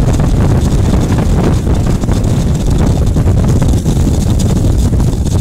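A loud, steady low rumble with wind buffeting the microphone.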